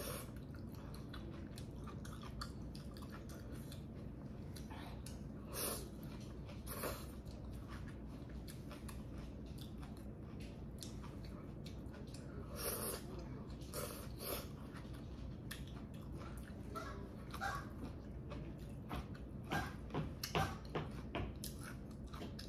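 Slurping and chewing of instant ramen noodles eaten with chopsticks: quiet chewing with several short, loud slurps.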